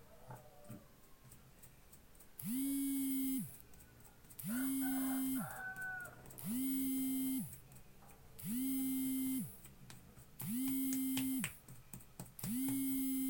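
A phone call's ringing tone heard through a phone's loudspeaker: a low, buzzy tone about a second long, repeating every two seconds, six times.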